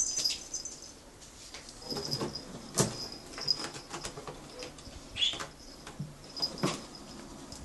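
A Maine Coon kitten's paws and claws tapping and scrabbling on a carpeted cat tree and wooden floor as it pounces at a string toy, in scattered knocks. A faint high-pitched chirping comes and goes in the background.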